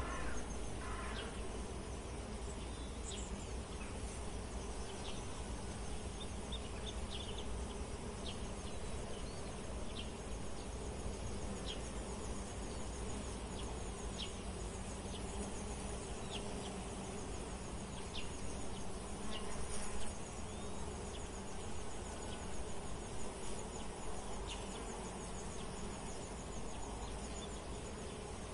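Insects buzzing and trilling: a fast, even high trill and short high chirps every second or two over a steady low hum.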